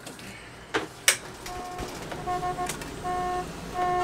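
Car horns honking again and again in backed-up, stopped traffic, some short toots and some longer blasts, over a low traffic hum. Two sharp clicks come about a second in, just before the honking starts.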